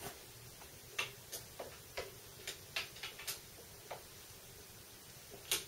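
About a dozen small, sharp metallic clicks and taps at irregular intervals, from a screwdriver working the screws that fasten a stepper motor to a milling machine's X-axis motor mount.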